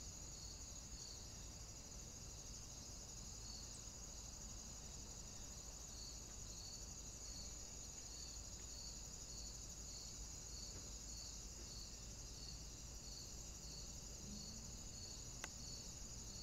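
Insects chirring in the woodland: a faint, steady high-pitched buzz with a softer chirp repeating about twice a second. A single sharp click comes near the end.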